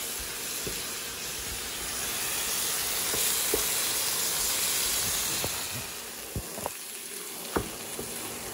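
Curry sizzling in a hot non-stick frying pan as it is stirred with a wooden spoon: a steady hiss that eases after about six seconds, with a few light knocks of the spoon against the pan.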